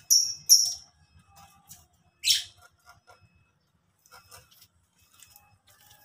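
Lovebirds calling: two sharp, high shrieks in the first second, then scattered faint chirps and one louder call sweeping downward a little over two seconds in.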